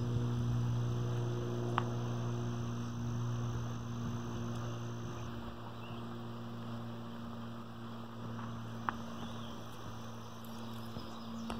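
A steady low hum with evenly spaced overtones, and two faint clicks.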